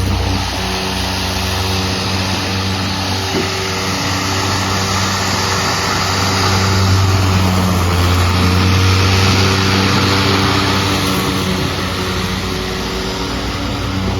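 EGO cordless battery-powered lawn mower running under load while mowing grass: a steady electric hum with the whoosh of the spinning blade, growing a little louder for a few seconds in the middle.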